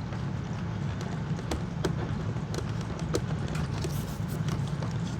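Scattered light clicks and taps of plastic vacuum-cleaner parts being handled and fitted together during reassembly, over a steady low hum.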